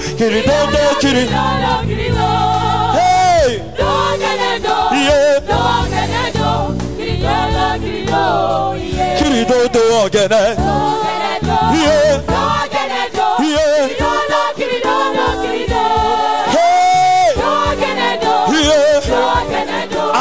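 Gospel music: a choir singing with vibrato over steady instrumental backing.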